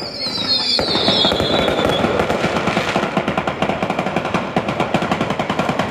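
Daytime firework battery going off: a dense, rapid string of firecracker bangs, close to a continuous rattle, with whistles falling in pitch during the first two seconds.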